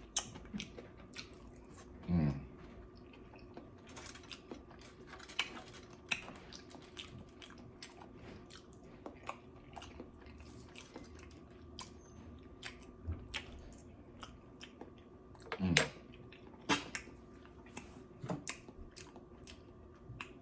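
A person chewing and biting food up close, with many small wet mouth clicks and crunches. Twice, about two seconds in and again near sixteen seconds, there is a short low voice-like sound that falls in pitch, louder than the chewing.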